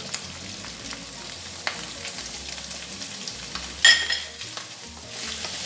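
Bacon sizzling in a hot nonstick wok, with a wooden spatula stirring and scraping as garlic and ginger paste goes in. A few light knocks and one sharp clink about four seconds in.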